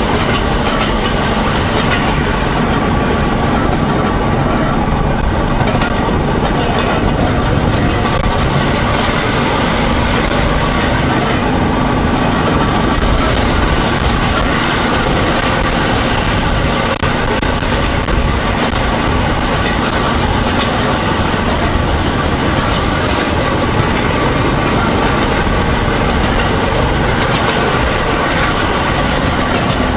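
Motor draisine (small rail trolley) travelling along narrow-gauge track: its engine runs steadily while the wheels roll over the rails.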